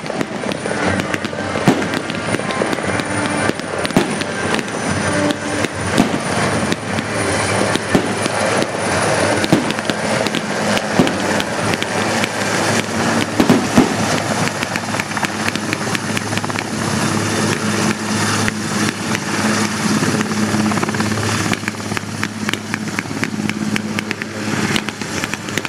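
Eurocopter AS-332B Super Puma twin-turbine helicopter running close by as it flies low and sets down, a steady rotor and turbine roar with a low hum. Many sharp cracks sound throughout, the loudest about halfway through.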